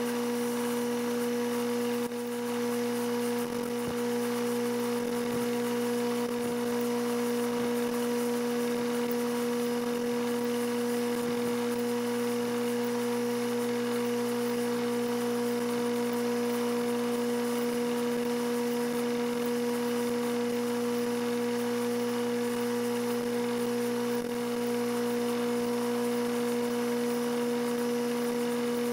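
Bridgeport milling machine's spindle running at constant speed with a steady, even-pitched whine while a 1/4-inch four-flute end mill plunges into a steel bar to cut a slot.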